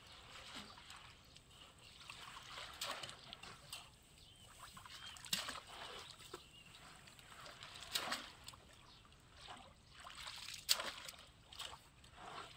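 Faint, irregular splashing and sloshing of shallow muddy water as a person wades through it and sweeps a long-handled scoop net along the bottom, with a few louder splashes.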